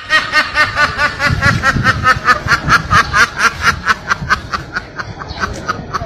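A duck quacking in a fast, even run of short calls, about five a second, growing weaker over the last second or two.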